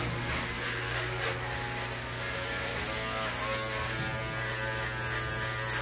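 Electric hair clippers running with a steady buzz while shaving a man's head.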